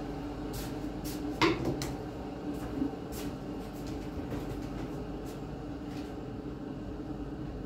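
Kitchen handling sounds while coffee is being made: a sharp knock about one and a half seconds in, a lighter one near three seconds and a few small clicks, like a cupboard door and crockery being handled, over a steady low hum.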